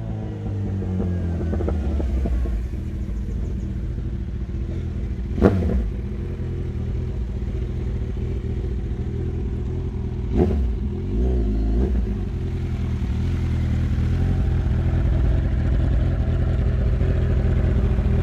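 Kawasaki Z1000's inline-four through an unbaffled Jeskap 4-2-1 full exhaust. The revs fall and then settle into a steady engine note. Two sharp pops come about five and ten seconds in, the second followed by a brief wavering in pitch.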